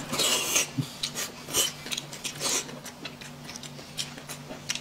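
Eating noises: a burst of slurping instant noodles, then short, scattered mouth and chewing sounds with light clicks of chopsticks and dishes, over a faint steady low hum.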